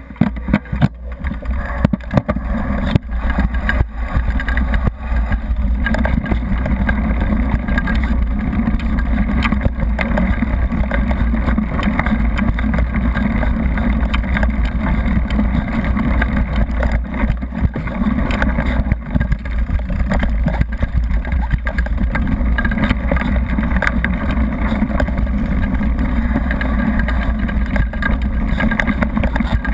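Mountain bike descending a rough gravel forest road: steady rumble of wind on the helmet or bike camera's microphone, with tyre noise and a constant irregular rattle and knocking of the bike over the rough surface.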